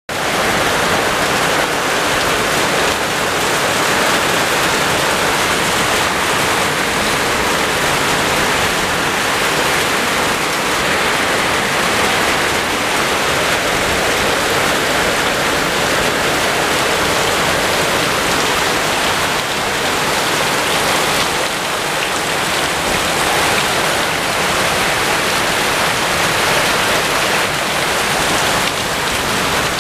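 Heavy downpour in a flash rainstorm, rain pouring steadily onto a flooded concrete driveway and yard with a constant hiss and splash.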